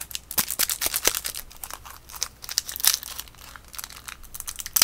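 Crinkly plastic wrapper from a pack of baseball cards being handled and pulled open: a dense run of sharp, papery crackles.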